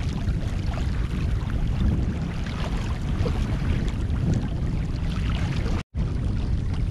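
Wind buffeting the microphone: a steady low rumble with a fainter hiss above it, cut off completely for a split second near the end.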